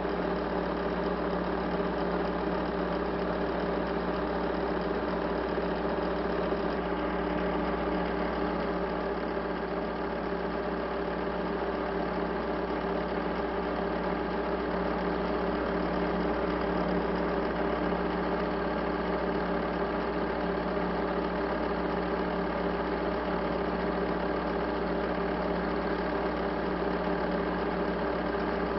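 A steady mechanical hum made of several constant tones, unchanging throughout.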